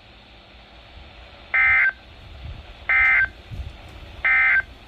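Three short, identical bursts of EAS digital data, a warbling two-tone squawk about a second apart: the NOAA Weather Radio end-of-message code that closes the flash flood warning.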